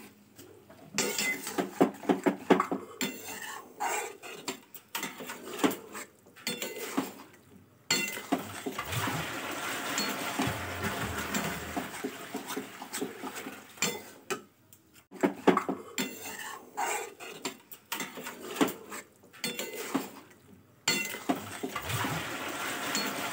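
Metal spatula scraping and clinking against a cooking pan while stirring thick chickpea and potato curry, in bunches of strokes with a few short pauses.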